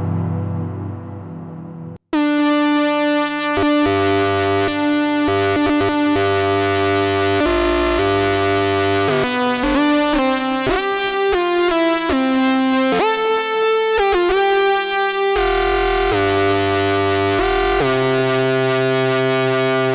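GForce Oddity 2 software synthesizer, an emulation of the ARP Odyssey analog synth, playing demo patches. A low, dark sustained sound cuts off suddenly about two seconds in. A bright, buzzy patch follows, moving through held notes and chords with pitch glides in the middle.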